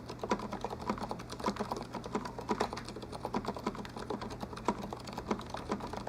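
Typing on an HHKB compact keyboard: a fast, steady stream of keystrokes, several per second, each with a short clack.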